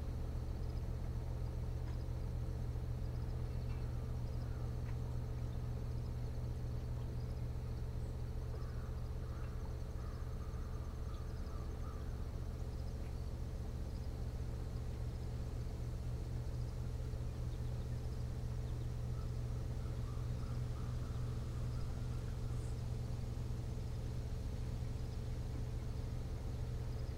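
Steady low hum with a few even higher tones, unchanging throughout. Faint short chirps come through twice, around eight and twenty seconds in.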